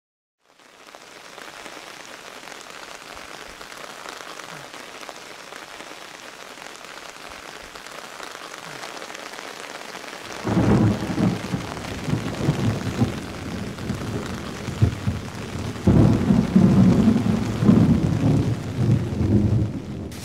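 Steady rain hiss fading in, then from about ten seconds in loud, rolling thunder rumbles over the rain.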